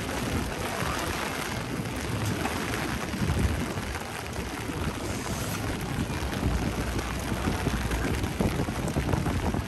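Heavy rain falling in a city street: an even, steady hiss of rainfall over a low rumble of street noise.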